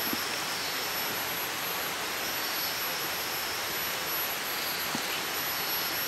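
Steady rushing ambient noise of the forest, with a faint high-pitched buzz that fades in and out. There are a couple of soft footfalls on the forest floor.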